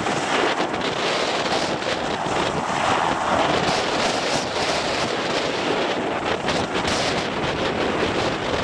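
Sikorsky S-92 twin-turbine helicopter taxiing on the ground with its rotors turning: a steady rush of turbine and rotor noise. Wind buffets the microphone throughout.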